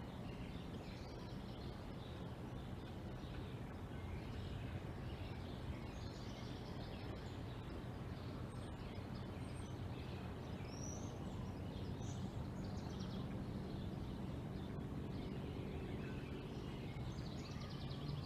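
Outdoor tree-canopy ambience: small birds chirp on and off at a high pitch over a steady low hum.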